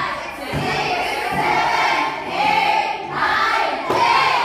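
Many students' voices at once, loud and overlapping, in a classroom.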